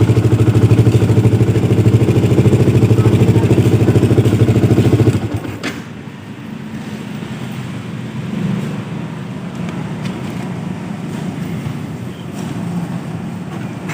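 Yamaha R15 V2's single-cylinder four-stroke engine idling steadily, freshly started, then switched off and cutting out suddenly about five seconds in.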